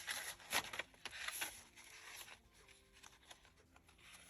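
Paper rustling as journal pages and paper pieces are handled and turned: a few short swishes in the first second and a half, then fainter light rustles.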